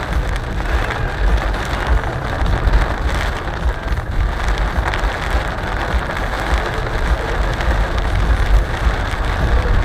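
Steady heavy rain falling on a car's roof and windshield, heard from inside the cabin, over a low rumble from the car moving slowly on the road.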